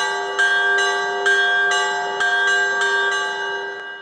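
Intro sting of ringing bell chimes, a new strike about every half second, each note ringing on over the last, the whole fading out near the end.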